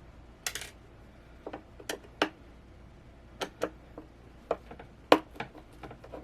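Irregular sharp clicks and light knocks of a screwdriver and hard plastic monitor parts being handled while the screws of a monitor stand are taken out, about a dozen in all, the loudest about five seconds in.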